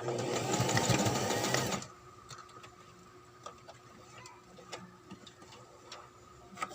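Brother XL-2600i sewing machine stitching at speed, stopping suddenly about two seconds in. After it stops there are only a few faint scattered clicks.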